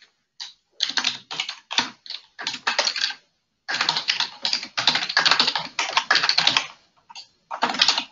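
Typing on a computer keyboard in quick runs of keystrokes, with a brief pause about three seconds in and another near seven seconds.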